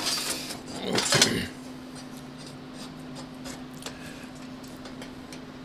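Thin steel frame plates clatter and scrape against each other as one is slid through a slot in another, for about the first second and a half. After that only a steady fan hum remains, with a few faint clicks of parts being handled.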